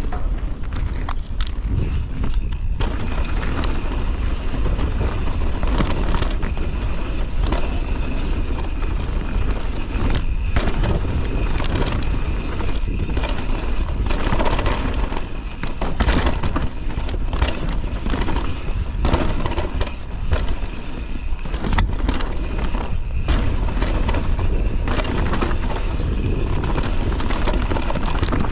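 Canyon Torque Mullet full-suspension mountain bike descending a downhill trail at speed: steady wind buffeting the microphone, tyres on dirt and gravel, and frequent short knocks and clatter as the bike hits bumps.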